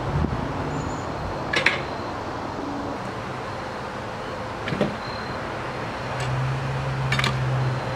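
Three sharp metallic clanks and knocks, spaced a few seconds apart, from a cant hook against a big log and the steel log bed and supports of a bandsaw sawmill, over a steady outdoor hiss. A low steady hum comes in near the end.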